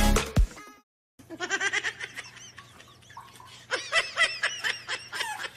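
The last of the electronic intro music cuts off, and after a brief gap a person laughs in quick, high-pitched bursts.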